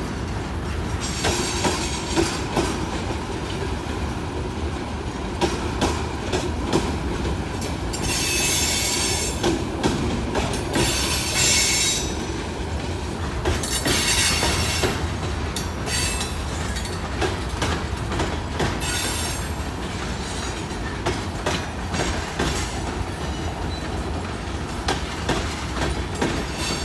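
Freight cars (tank cars, hoppers, a coil car) rolling past on the rails with a steady rumble and frequent clacking of wheels over rail joints. Several stretches of high-pitched wheel squeal come and go in the middle, the longest about a third of the way in.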